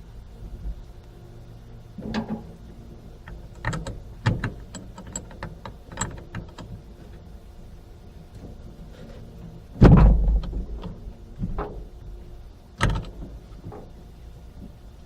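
Scattered clinks and knocks of metal hand tools and parts being handled during battery-cable work, with a loud thud about ten seconds in and a sharper knock near thirteen seconds.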